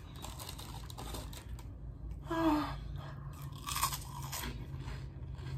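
Close-up chewing of crunchy tortilla chips from nachos, crackling throughout, with a short hum of the voice about halfway through.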